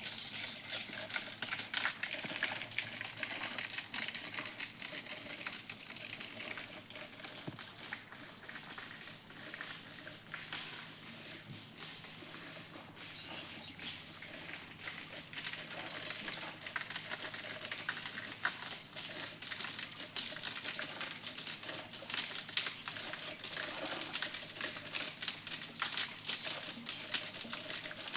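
Small garden waterfall splashing: a steady hiss of falling water, dense with the crackle of spattering drops.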